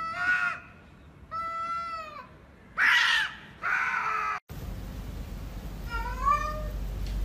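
Domestic cat yowling at another cat in a standoff: four drawn-out threat yowls in a row, each about a second long. After a sudden change of background about two-thirds of the way in, a fainter, shorter call.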